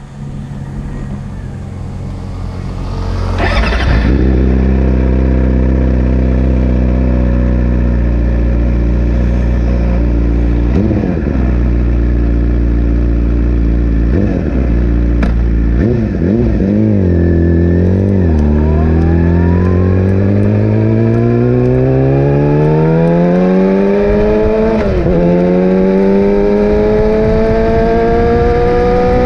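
Yamaha YZF-R6 inline-four engine running. It jumps in loudness about four seconds in, holds a steady low note with a few short throttle blips, then the revs climb steadily through the last ten seconds as the bike pulls away under power.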